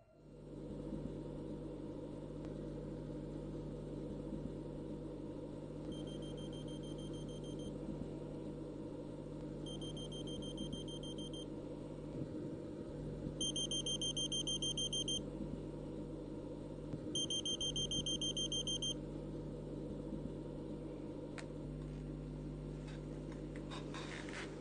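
A bedside alarm beeping in four bursts of rapid high beeps, the last two louder than the first two, over a steady low hum of room tone. A few faint clicks and rustles come near the end.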